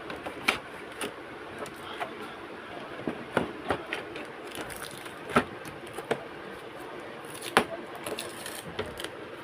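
Scattered sharp plastic clicks and knocks from handling the parts of an Epson L380 inkjet printer being taken apart, about a dozen irregular taps with the loudest about half a second in, five seconds in and near the end.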